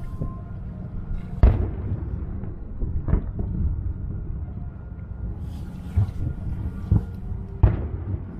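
Distant aerial firework shells bursting as a series of about five booms, the loudest about a second and a half in. A low steady rumble runs between them.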